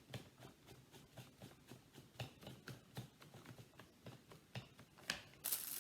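Faint, scattered light taps and rustles of hands working with art materials on a table, with a short loud rustle about five and a half seconds in.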